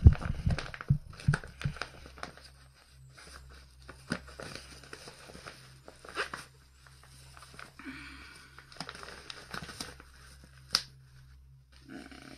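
Clear plastic film of an MSA escape hood crinkling and rustling as it is handled with leather gloves. It is loudest at the start, then comes as scattered soft crinkles and small clicks, with one sharp click near the end.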